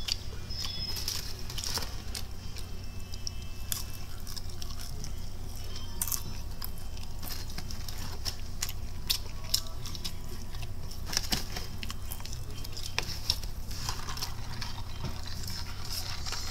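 Someone chewing and crunching breaded fried chicken tenders close to the microphone, with scattered crisp crackles, over a steady low hum.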